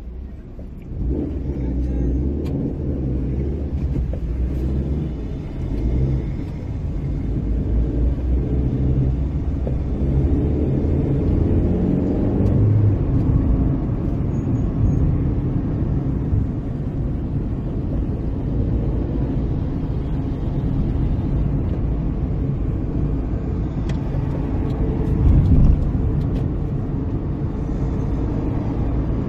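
Car engine and road noise heard from inside a moving car's cabin: a steady low rumble that grows louder about a second in, with a brief louder swell near the end.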